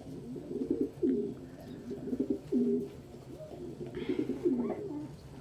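Domestic pigeons cooing: a run of low, wavering coos, one after another and sometimes overlapping.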